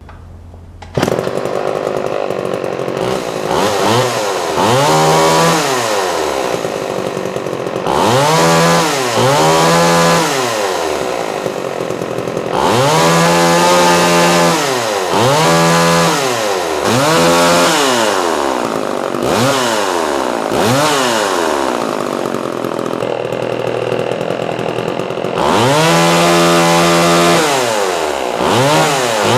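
Vintage Homelite 150 Automatic two-stroke chainsaw running, its throttle blipped repeatedly so the engine swings up from idle and back down many times, with a few longer revs held at the top.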